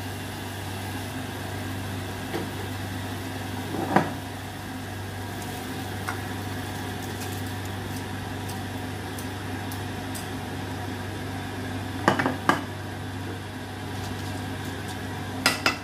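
Chicken and rice sizzling faintly in an aluminium pot over a steady low hum, with knocks of a wooden spatula against the pot: once about four seconds in, twice about twelve seconds in and twice near the end. The rice is being added to the sautéed chicken and stirred.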